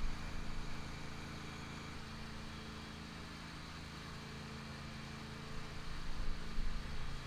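An engine running steadily, a low hum that holds one pitch, with some louder uneven noise near the end.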